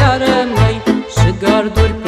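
Banat-style Romanian folk music: two saxophones and an accordion playing a quick, ornamented melody over a steady bass beat of about two a second.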